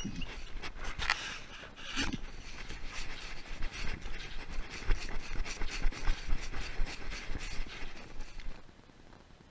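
Camera handling noise: rubbing and scraping with scattered knocks as the camera is jostled along, dying away to a faint hiss about a second before the end.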